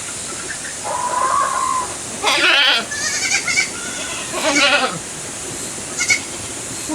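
Goats bleating: several separate wavering calls, the loudest a little over two seconds in, over a steady background hiss.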